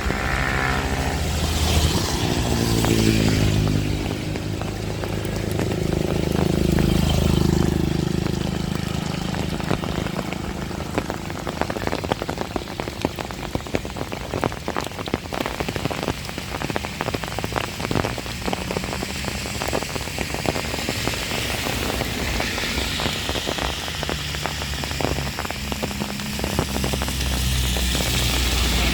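Heavy rain falling, with dense close drop ticks through the middle. A motor vehicle passes in the first few seconds, its engine pitch falling, and a low engine hum builds again near the end.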